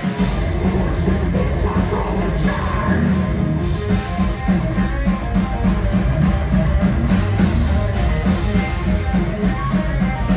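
Rock band playing loud, with electric guitars over a drum kit and a fast, even low rhythm.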